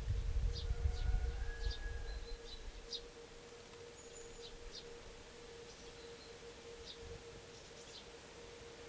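Short high bird chirps repeating every half second or so, with a few brief whistled notes, over a steady low hum. A low rumble in the first three seconds is the loudest sound.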